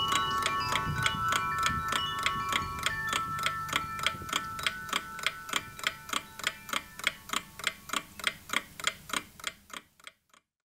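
Even mechanical ticking, about three ticks a second, with ringing chime-like tones dying away over the first few seconds. The ticking slowly fades out and stops shortly before the end.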